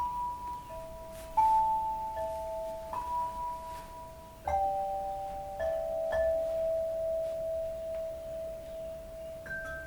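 Tuned metal percussion struck softly, playing a slow, gentle melody of single notes, each left to ring on. A low note rings through the middle, and quicker, higher notes begin near the end.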